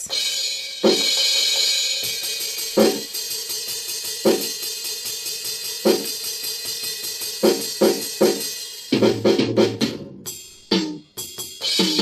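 Sampled drum sounds from a 7-pad roll-up electronic drum kit's built-in speaker, triggered by drumsticks on the pads: single hits about one and a half seconds apart over a ringing cymbal, then a quicker run of lower hits near the end.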